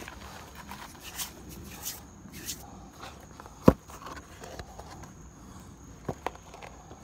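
A worn Timberland leather boat shoe handled against a concrete step: a few short brushing scrapes, then one sharp knock of the shoe's sole on the concrete about halfway through, and two lighter taps near the end.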